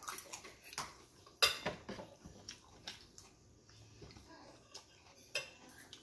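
A metal fork clinking and scraping on a ceramic plate while eating: a few short sharp clicks, the loudest about a second and a half in.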